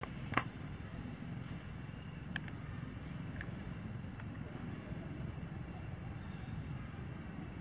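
Steady high-pitched chorus of insects, with a single sharp click about half a second in.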